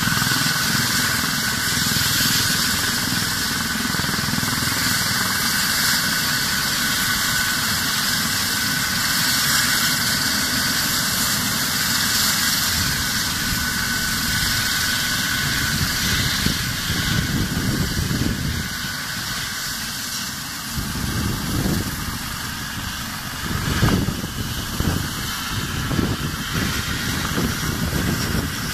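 Eurocopter EC135 rescue helicopter running on the ground with its main rotor turning: a steady turbine whine over the rotor's rushing noise. From about halfway, gusts of rotor downwash buffet the microphone.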